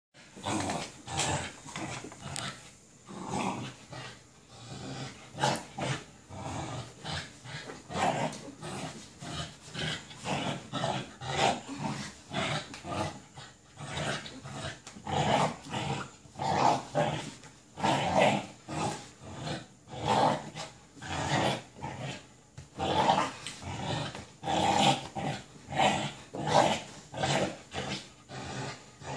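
American Bully puppy growling in repeated short bursts while playing tug-of-war with a toy.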